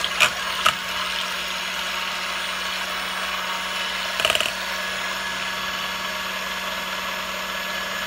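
Electric mixer running steadily, beating egg whites and sugar into meringue. There are a couple of short knocks just after it starts and a brief louder clatter about four seconds in.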